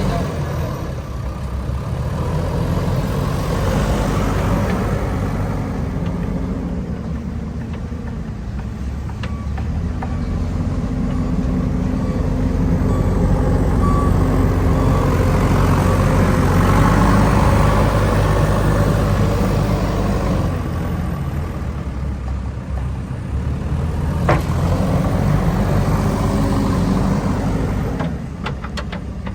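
JCB backhoe loader's diesel engine running under working load, its note rising and easing off several times, with a few sharp metallic knocks near the end.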